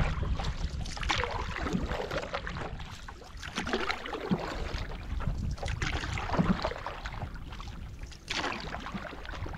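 Canoe paddle strokes through lake water, a splashing swish every couple of seconds, over a steady low rumble of wind on the microphone.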